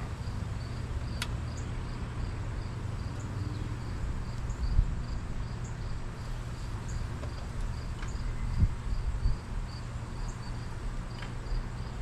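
Crickets chirping in a steady, regular rhythm of about three high chirps a second, over a low steady rumble. There is a sharp click about a second in and dull thumps about five and eight and a half seconds in.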